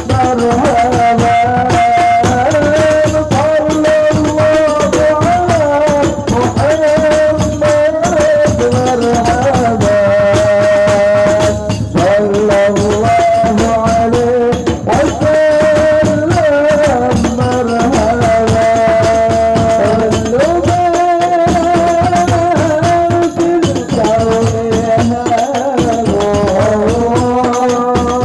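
Maulid devotional song sung into a microphone by a lead singer with long, wavering held notes, accompanied by a group of rebana frame drums beaten by hand in a steady, busy rhythm.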